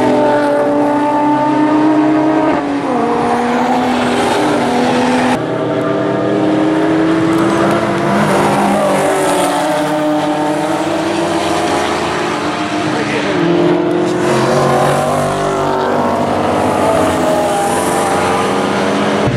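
Racing cars passing at speed, several engines at once, their notes climbing under acceleration and dropping at each gear change. The sound changes abruptly to another group of cars about five seconds in.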